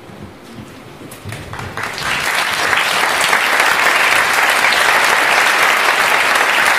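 Theatre audience applauding: a few scattered claps about a second in, swelling to full, steady applause by about two seconds.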